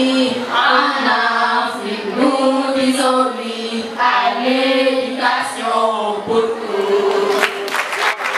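A woman singing a chant into a microphone over a PA, in long held notes. Near the end, sharp clattering sounds break in, like the start of applause.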